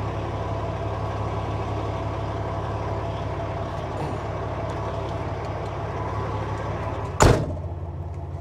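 Semi truck cab while driving: a steady engine drone under road hiss. About seven seconds in comes a single brief, loud thump, after which the hiss is quieter.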